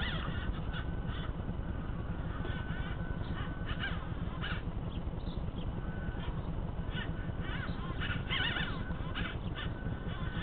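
Radio-controlled rock crawler's electric motor and gears whining in short spurts as it crawls over rubble, with many short scraping and clicking sounds over a steady low rumble.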